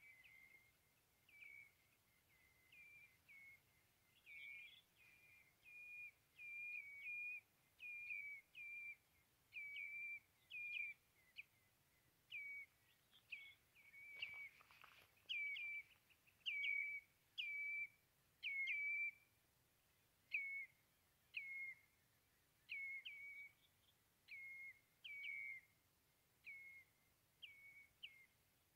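A bird calling over and over: short whistled chirps, each with a quick upward flick, about one or two a second, growing louder toward the middle and fading near the end.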